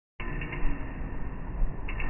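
Red five-armed fidget spinner spinning on its centre bearing, giving a faint steady whir over a low rumble.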